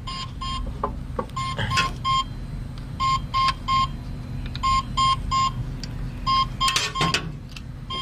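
An electronic warning beeper gives short high beeps in clusters of about three, a cluster roughly every one and a half seconds, over the steady low hum of an idling engine. A few sharp knocks come through, the loudest about seven seconds in.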